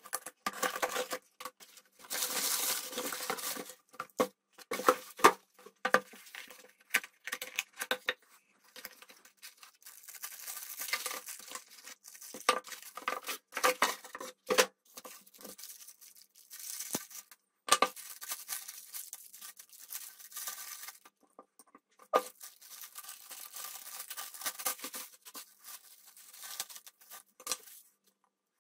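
Unboxing sounds: a box cutter slitting packing tape on a cardboard box and the tape tearing, then cardboard, plastic bags and packing rustling and crinkling as parts are unpacked and set down on a desk. Irregular bursts of ripping and crinkling, with scattered clicks and knocks and short pauses.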